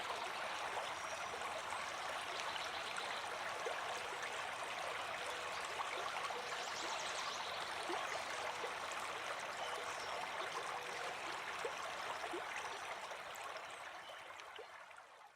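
A stream flowing steadily with a constant babble of running water, fading out near the end.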